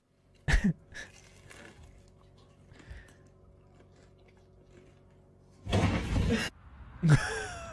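A mostly quiet room, then about six seconds in a sudden loud crash lasting under a second as something falls over, followed just after by a short cry.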